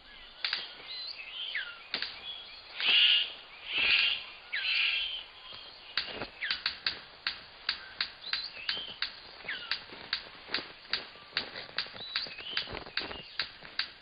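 Male superb bird of paradise courting: a few gliding whistled notes, then three loud harsh calls about three to five seconds in. From about six seconds in he clicks rapidly, about three to four sharp clicks a second with an occasional short whistle among them, as he dances in his spread-cape display before a female.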